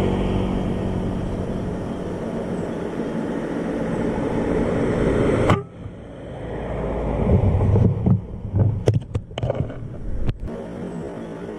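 Steady low rumbling background, then a single sharp air-rifle shot about five and a half seconds in, after which the rumble drops away. A few scattered thumps and short clicks follow.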